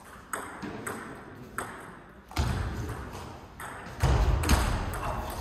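Table tennis ball in play: sharp clicks of the ball off bats and table at irregular intervals, with two heavier low thumps about two and a half and four seconds in.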